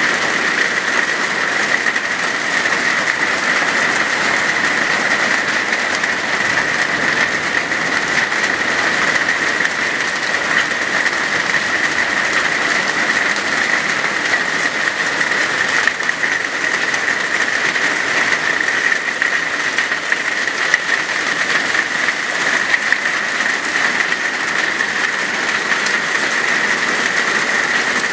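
Small hail mixed with rain pelting a tiled patio and doormat: a dense, steady clatter of countless tiny impacts over a hiss.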